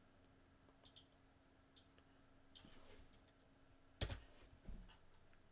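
Faint, sparse clicks of a computer mouse over a very quiet room, with a louder click and a low thump about four seconds in.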